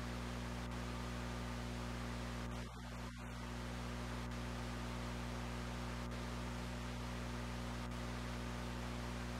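Steady static hiss over a low electrical buzzing hum, dipping briefly about three seconds in.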